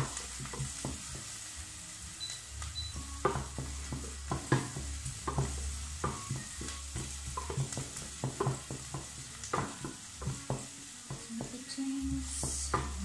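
Wooden spatula stirring onion and garlic sautéing in oil in a stainless steel pot: irregular knocks and scrapes of the spatula against the pot over a light sizzle.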